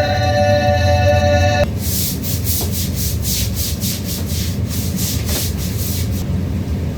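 A brief chord of steady ringing tones, then rhythmic back-and-forth rasping strokes, about two to three a second, like something being rubbed or sanded by hand, over a low hum.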